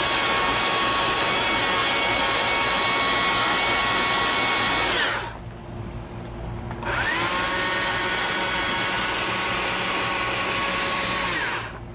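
Stihl chainsaw running at high revs while carving wood, in two runs of about five seconds each with a steady high-pitched whine. It winds down and drops off for about a second and a half in the middle, then spins back up.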